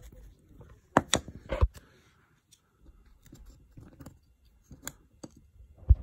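Sharp plastic clicks and small snaps as a flat-blade screwdriver prises the switch block out of a Citroen C1 hazard light switch housing, with faint handling between: three clicks close together about a second in, a few more near the end.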